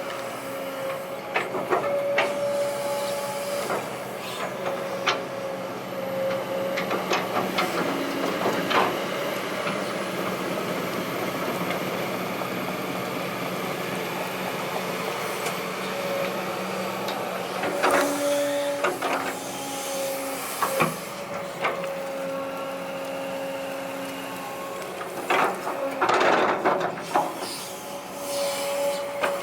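Kobelco SK200-8 hydraulic excavator working: its diesel engine runs steadily while the hydraulic whine rises and drops away as the boom and bucket move. Scattered knocks and scrapes come from the bucket smoothing the soil, louder about two-thirds of the way through and again near the end.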